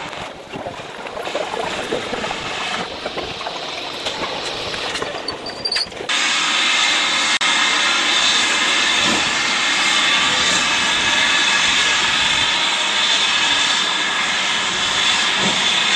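Railway station bustle around a standing train. About six seconds in it gives way abruptly to a loud, steady hiss of steam from a steam locomotive close by.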